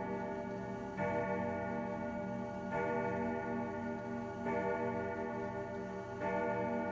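Kieninger triple-chime grandfather clock movement striking the hour on its chime rods: a deep, ringing stroke about every one and three-quarter seconds, four strokes in all, each ringing on into the next.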